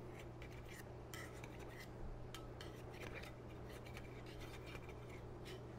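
A knife scraping and lightly clicking against the side of a metal Bundt pan as it is run around the edges to loosen a baked cake from the pan. Faint, with scattered short scrapes and ticks.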